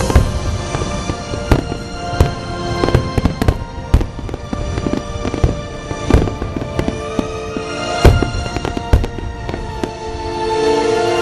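Aerial fireworks shells bursting one after another, sharp bangs about one or two a second, the loudest about eight seconds in, over background music with held tones. The bursts stop about nine seconds in, leaving the music alone.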